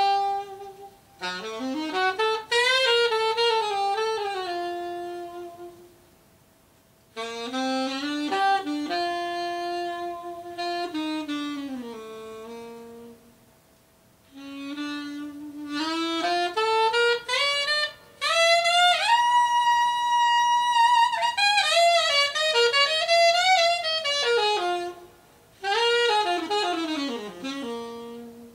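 Unaccompanied saxophone solo playing a melody in several phrases separated by short pauses, with notes that bend and slide. There is a long held high note about two-thirds of the way through, and a falling slide near the end.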